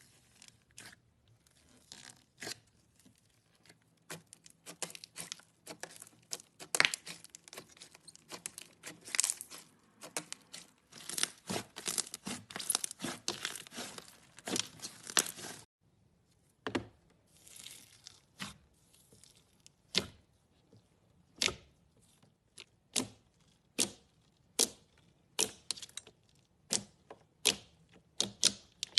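Slime being squeezed and pulled by hand: dense runs of sticky crackling and popping clicks that break off suddenly about halfway through, then single pops about once a second.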